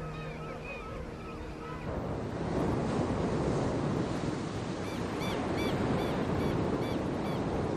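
Surf breaking on a sandy beach with wind, a steady rushing wash of waves that starts about two seconds in. Before it, repeated high arching calls from a king penguin colony sound over a low steady drone. Faint short, high bird calls come over the surf later on.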